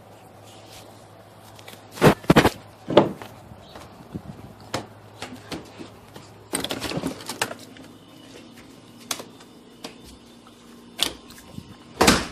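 Crackers being crunched and chewed, played backwards: a few loud crunches about two and three seconds in, a denser run of crunching around six to seven seconds, and two more near the end.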